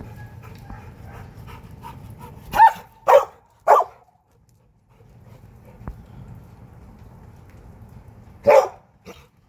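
A dog barking: three sharp barks about half a second apart, then a single bark near the end.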